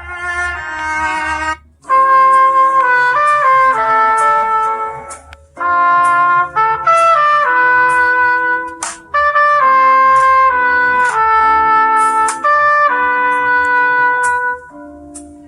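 A Samsung Galaxy phone ringtone: a short melody in a trumpet-like tone. It starts softly, then a loud phrase of held notes repeats about every three and a half seconds, as a ringtone loops.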